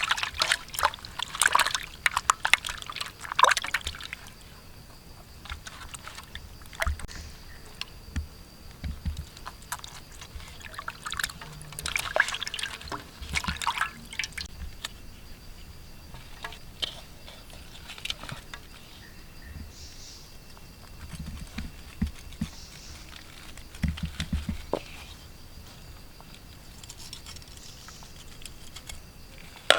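Water splashing and sloshing in irregular bursts, heaviest in the first few seconds and again around the middle, with a few dull low thumps later on.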